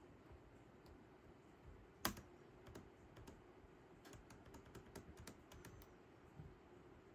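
Keys pressed on a Lenovo Legion 9i laptop keyboard, switching its colour backlighting: one sharp click about two seconds in, then a run of light key clicks for a few seconds.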